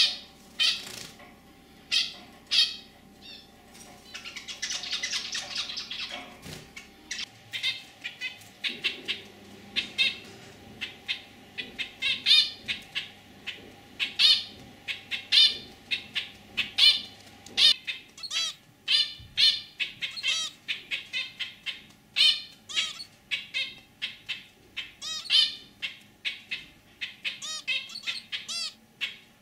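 Zebra finch calling: a long series of short, nasal beeping calls, sparse at first and then coming several a second and louder from about halfway through.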